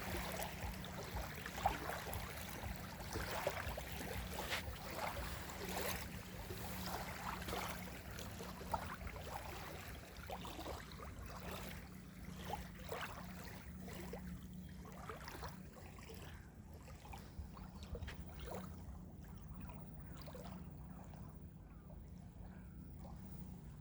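Small waves lapping and splashing at the shoreline in irregular little splashes that grow sparser and quieter toward the end, over a steady low rumble.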